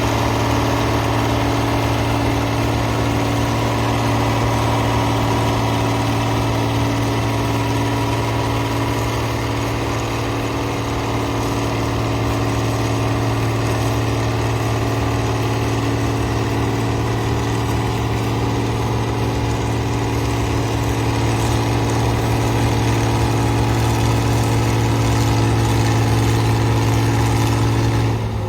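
Antique farm tractor engine running at a steady speed; its note drops right at the end as the revs fall.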